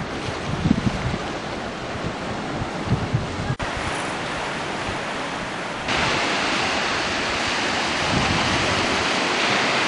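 Sea surf washing and breaking over rocks and a pebbly shore, with gusts of wind buffeting the microphone. The surf turns louder and hissier from about six seconds in.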